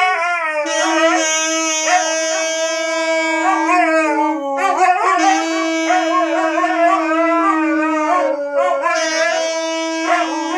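Saxophone playing long held notes while huskies howl along, their howls wavering up and down in pitch over the steady sax tone.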